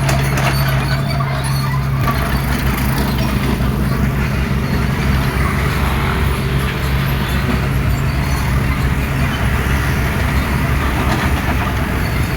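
Hydraulic excavator's diesel engine running steadily with a low hum, which changes about three-quarters of the way in.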